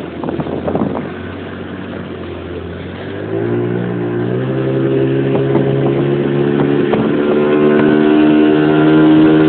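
Motorboat engine throttling up. Its pitch jumps about three seconds in and keeps climbing as the boat gathers speed, growing steadily louder.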